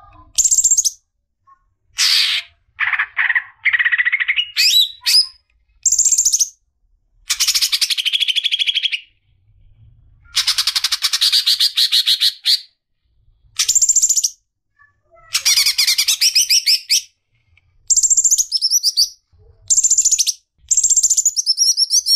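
Greater green leafbird (cucak ijo) singing a string of varied phrases about a second long with short pauses between: rapid chattering trills mixed with high clear whistled notes.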